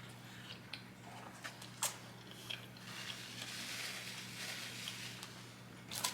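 Close-miked chewing and mouth clicks of a person eating, with a soft rustling hiss in the middle and a sharp click a little under two seconds in, over a steady low hum.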